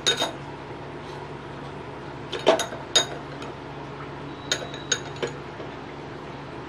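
A metal spoon clinking against a metal cooking pot as salt is spooned into the water, about six sharp strikes with a short ring, over a low steady hum.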